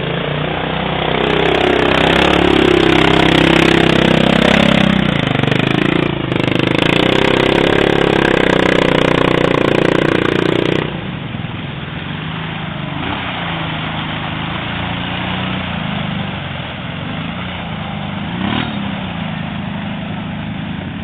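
ATV engine revving loudly as the quad ploughs through mud close by, its pitch rising and falling with the throttle. About eleven seconds in it drops to quieter, steadier running.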